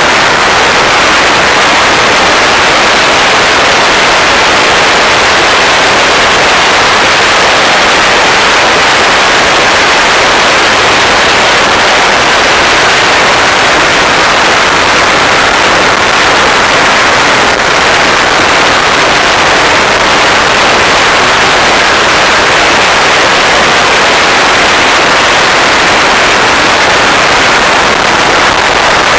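Loud, steady rushing noise recorded from a camera mounted on a radio-controlled model jet in flight: air rushing past the airframe mixed with the jet's power unit, with no distinct pitch and no breaks.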